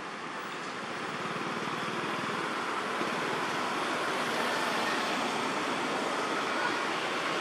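Steady background noise, like distant road traffic, slowly growing louder.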